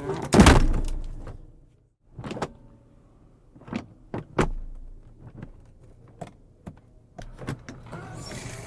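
Heavy iron door slammed shut with a loud bang that dies away over about a second, followed by a string of short, sharp metal clicks and knocks. A steady hiss comes in near the end.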